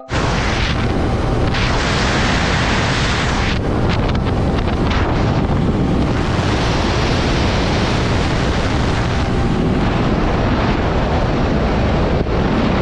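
Steady, loud wind rushing over the microphone while riding a motorcycle at road speed.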